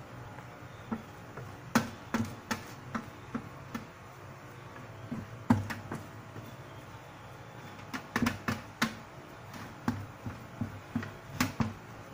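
Irregular knocks and taps of a utensil against an aluminium steamer tray while sticky rice is stirred and mixed, in clusters with short pauses, over a steady low hum.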